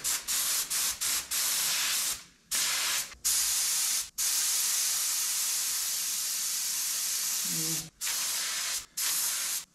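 A small gravity-feed touch-up spray gun hisses as compressed air sprays primer in test bursts. A few quick trigger pulls come first, then longer blasts, the longest nearly four seconds in the middle.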